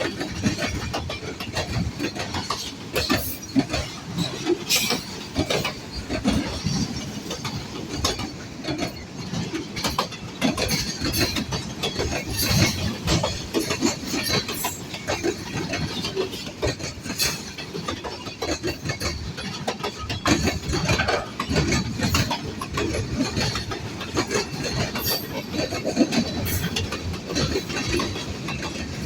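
Freight cars of a manifest train rolling past, steel wheels rumbling and clicking over rail joints, with irregular clanks and knocks throughout.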